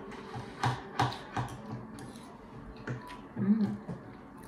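Metal spoon and fork clicking lightly against plates while eating: a handful of scattered, sharp clicks.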